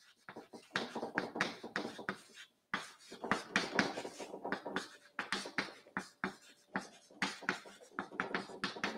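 Chalk writing on a blackboard: quick taps and scratches of the chalk as words are written, in several short runs with brief pauses between them.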